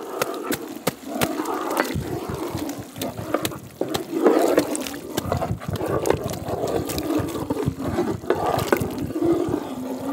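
Thick curry gravy sloshing and squelching as a basket of tiny river fish is tipped into a large pot and stirred in with a wooden spoon, with many small clicks and knocks of the spoon against the pot.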